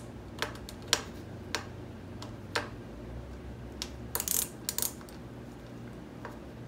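Irregular sharp metallic clicks and clinks of a wrench working the rear brake master cylinder mounting bolts on an ATV frame, with a quick cluster of clicks about four seconds in.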